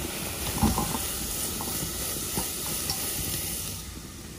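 Steady sizzling hiss from a hot clay pot of boiled tender jackfruit, with a few soft knocks as a ladle crushes the jackfruit. The hiss fades near the end.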